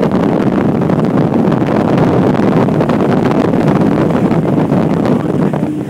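Loud, steady wind buffeting the microphone over the low, even hum of a boat's motor running under way.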